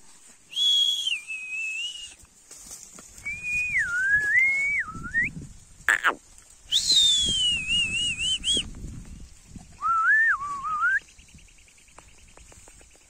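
A person whistling four short phrases, each a clear tone that glides and wavers up and down, with gaps of about a second between them. A sharp click comes about six seconds in.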